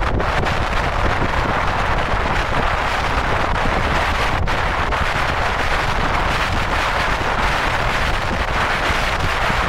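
Steady wind rushing over the microphone of a camera on a moving car, with road and tyre noise underneath.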